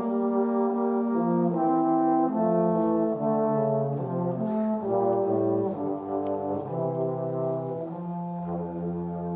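Two trombones playing a duet, two lines moving note to note in harmony. Near the end both settle onto long held notes.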